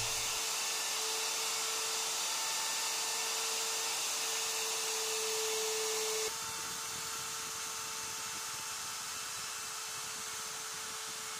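Electric plunge router running at full speed with a steady high whine, its flush-trim bit levelling a formica laminate sheet with the plywood beneath. The sound drops slightly in level about six seconds in.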